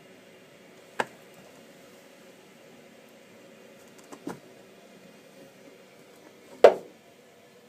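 Three sharp knocks over a faint steady hum: one about a second in, a quick double a little past the middle, and the loudest near the end.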